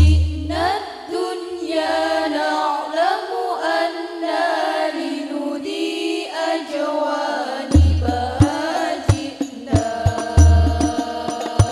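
Girls' voices singing an Arabic sholawat through a PA system, a winding, ornamented melody. The banjari frame drums play little at first, then come back in about eight seconds in with deep bass thumps and sharp slaps.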